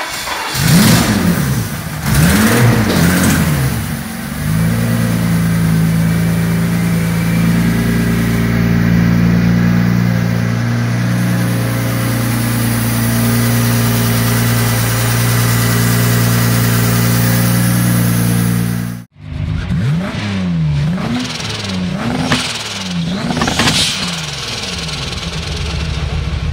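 Twin-turbo BMW M73B54 V12 in a Ferrari F355 revved twice, then held at a steady raised speed for about fifteen seconds. After a sudden cut, a twin-turbo V10 in a VW Golf is blipped in a quick string of short revs.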